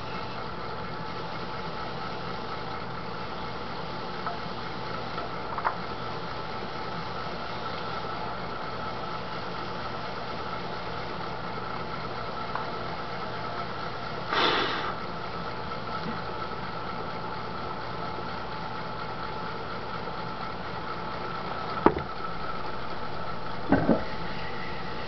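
Electric potter's wheel motor running with a steady hum. A few short clicks and knocks break in, a brief noisy burst about halfway through and the loudest knocks near the end.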